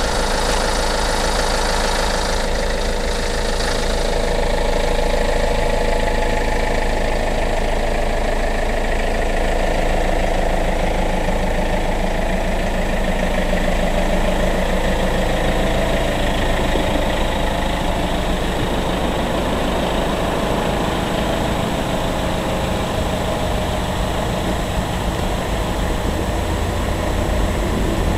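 Turbo-diesel engine of a Renault Master van idling steadily.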